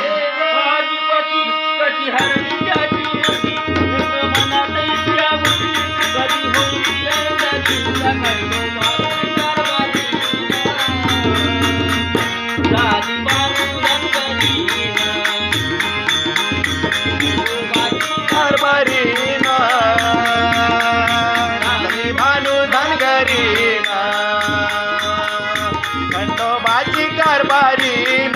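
Instrumental interlude of a Marathi devotional folk song: a melodic lead line over a steady drum rhythm that comes in about two seconds in.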